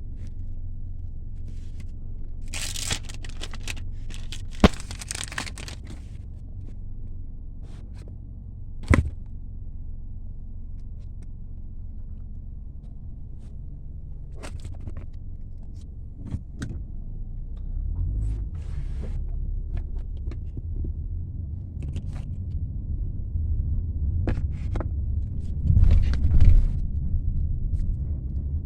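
iPhone 12 box packaging being handled and opened: a few seconds of tearing and crinkling early on, then scattered sharp clicks and taps, over a steady low rumble.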